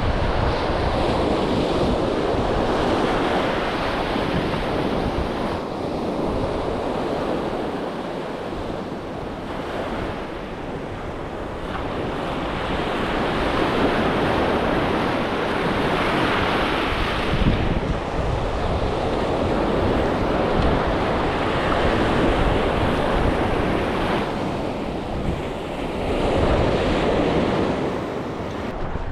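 Sea surf washing onto the beach in slow surges that rise and fall, with wind buffeting the microphone.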